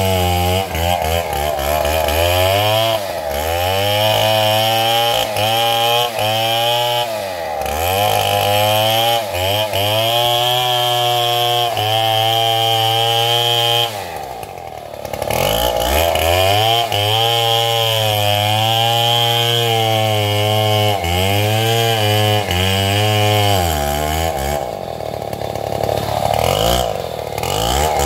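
Stihl MS 070 two-stroke chainsaw running in a cut, its engine speed falling and rising over and over as the chain bogs and recovers. It drops briefly to idle about halfway through and again near the end.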